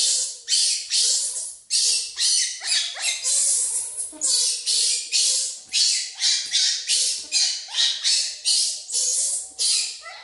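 Baby monkey crying out over and over in shrill squeals, about two to three a second, some rising in pitch.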